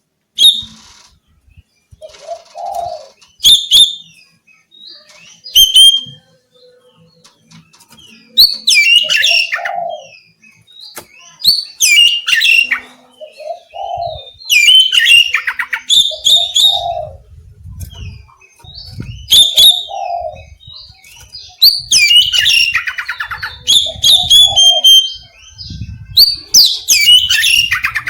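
Oriental magpie-robin (kacer) singing loud, varied whistled and chattering phrases in repeated bursts every two seconds or so, with a lower short note between many phrases.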